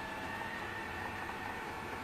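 Vacuum cleaner running steadily: an even rushing noise with a steady motor whine.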